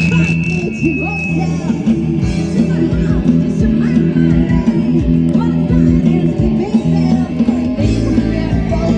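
Rock band music: a bass line of held low notes that drops lower near the end, with drums, guitar and a singing voice.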